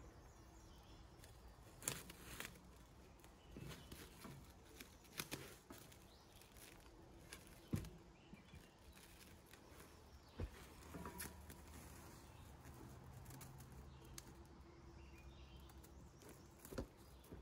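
Faint handling noises: scattered sharp clicks and knocks from a wire shelf rack being shifted and wrapped with plastic stretch film, with light rustling in between.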